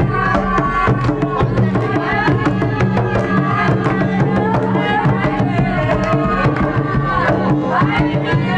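A hand drum beating a quick, steady rhythm under several women's voices wailing and chanting in a wavering funeral lament, the lumbalú of a Palenque wake.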